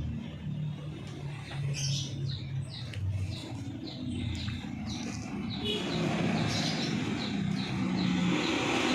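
Small birds chirping, a string of short falling chirps, over a low engine rumble; a passing vehicle's noise swells in the second half.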